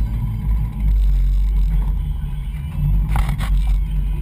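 Low rumble of wind buffeting the microphone of a camera mounted on a moving bicycle, with a couple of short rattles about three seconds in.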